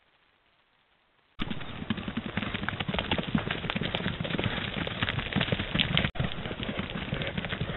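Elk walking close to a trail camera: a dense run of hoof clicks and knocks on the ground, starting suddenly about a second and a half in after near silence, and cutting out for an instant about six seconds in.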